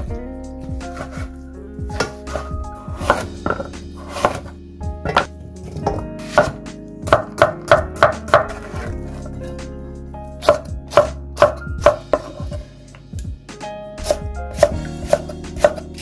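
Chef's knife chopping on a wooden cutting board, slicing through onion: quick runs of sharp knocks as the blade hits the board, about four strokes a second, with short pauses between the runs.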